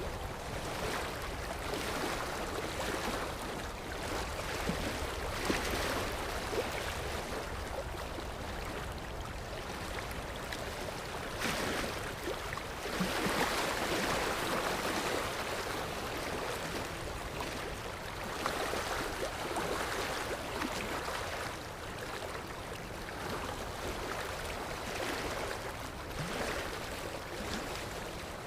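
Sea waves washing onto a shore: a continuous rush of surf that swells and eases several times, with the biggest swell around the middle.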